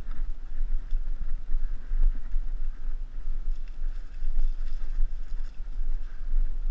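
Mountain bike riding a dirt singletrack, heard through a bike-mounted camera: a rough, fluctuating rumble of wind buffeting the microphone and the ride's jolts, with a few light clicks and rattles from the bike.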